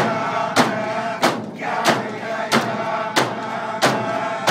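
Inupiaq frame drums struck together on a steady beat, about three strokes every two seconds and eight in all, under a chorus of voices chanting a dance song.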